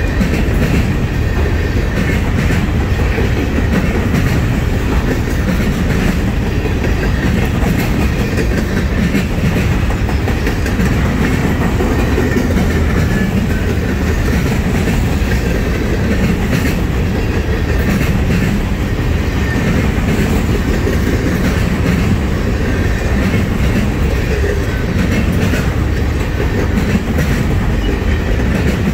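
Freight train of loaded trash-container flatcars rolling past, a steady heavy rumble with wheels clicking over rail joints.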